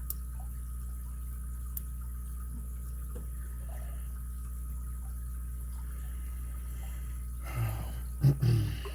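A lock pick tensioning and setting pins inside an ABUS 83CS/55 padlock makes a few faint, light clicks over a steady low hum. Near the end there is a brief low vocal sound.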